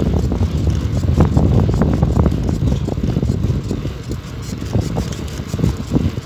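Wind buffeting the microphone of a camera riding on a moving bicycle, a loud, uneven rumble that gusts up and down, mixed with the noise of the ride along asphalt.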